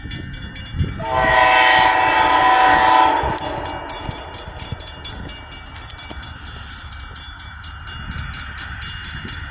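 An approaching Amtrak passenger locomotive (engine 100) sounds its multi-chime air horn in one long blast of about two seconds, a little after the start. After the horn, the rumble of the oncoming train continues more quietly.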